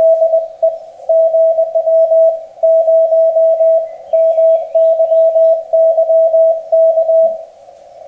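Morse code (CW) on a 40 m amateur radio transceiver: a single tone of about 650 Hz keyed rapidly in dots and dashes. About seven seconds in, the strong keying stops and only a much fainter tone carries on.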